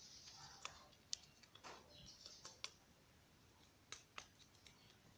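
Faint, irregular small clicks and light taps, about ten in all, from handling small objects, with one soft rustle about two seconds in.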